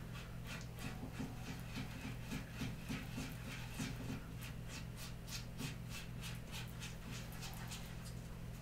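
Thickened epoxy paste, mixed to a peanut-butter consistency, being stirred and scraped in a mixing cup: a run of short scraping strokes, about two or three a second, over a steady low hum.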